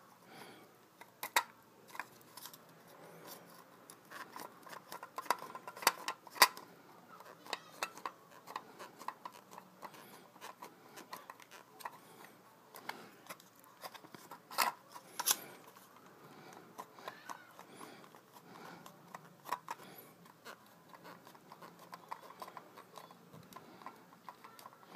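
Flathead screwdriver prying up the crimped lip of a Porsche 944 gauge housing, twisted bit by bit around the rim: a steady run of irregular small clicks and scrapes, with a few sharper snaps.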